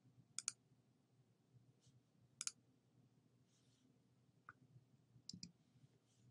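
Three quick double-clicks of a computer mouse, about half a second in, about two and a half seconds in and near the end, over faint room tone.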